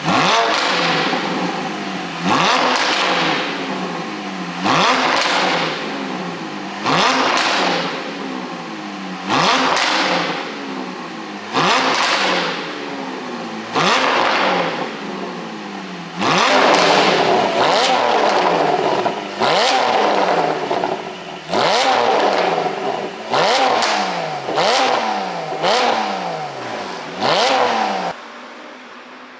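Porsche 718 GTS 4.0's flat-six engine, through an iPE aftermarket exhaust, revved in a series of about a dozen sharp throttle blips from idle, roughly one every two seconds, each falling back with sharp pops and crackles on the overrun from a tuned ECU pop setting.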